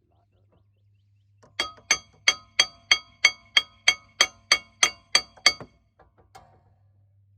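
Hammer beating on the face of a seized rear brake rotor of a 2000 Saleen Mustang, about thirteen hard blows at roughly three a second, each one ringing metallically. The rotor is stuck to the hub because it has likely never been off the car, and it is being knocked loose.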